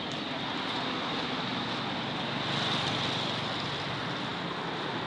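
Steady rushing noise of a vehicle on the move, with no clear events.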